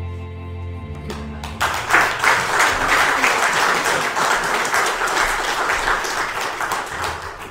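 The last chord of a worship song rings out with a held low note and dies away, and about a second and a half in a congregation breaks into applause, which thins out near the end.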